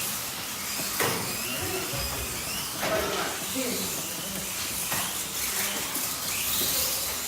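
Slot cars running on a track during a race: their small electric motors whir under a steady high hiss, with a few short clicks.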